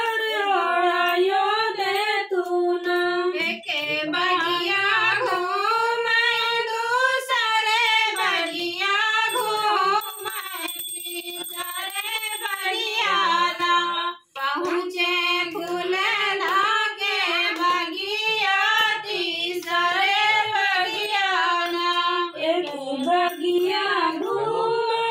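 A group of women singing a devotional folk song together, unaccompanied, at a home puja. The singing grows quieter about ten seconds in, breaks off briefly near the middle, then carries on at full strength.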